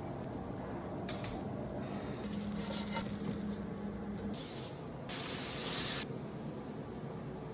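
Two short hissing sprays from an aerosol can, a little past the middle, one right after the other, with a few light handling clicks earlier.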